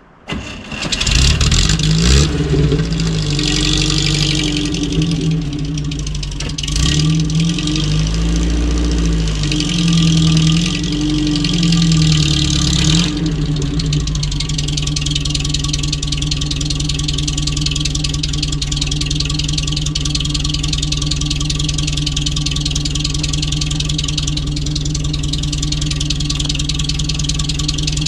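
UAZ off-road vehicle's engine starting about a second in, revving unevenly with the pitch rising and falling, then settling to a steady idle from about halfway through.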